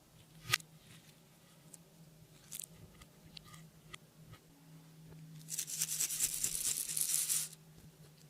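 Crunchy crackling from clear slime being worked with makeup and glitter mixed in, loudest for about two seconds near the end, with a few sharp clicks earlier.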